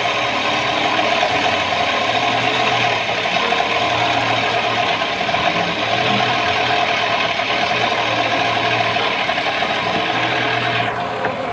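A boat's engine running steadily, a continuous mechanical drone with a clattering edge that does not change.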